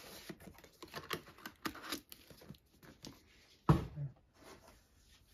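Cardboard box and packaging rustling, scraping and clicking as items are handled inside it, with one loud dull thump about two-thirds of the way through.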